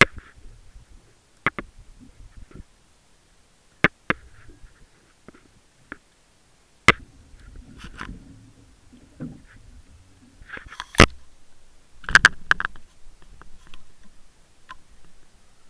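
Irregular sharp clicks and knocks heard under water through a submerged camera, with faint low rumbling between them. The loudest knock comes about eleven seconds in, followed soon after by a quick cluster.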